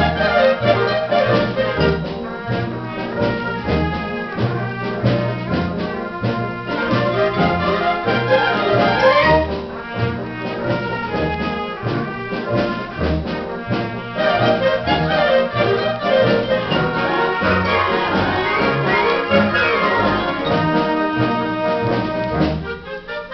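Symphonic concert band playing, with trombones and trumpets leading over a steady low rhythmic figure; the band thins out and drops in loudness near the end.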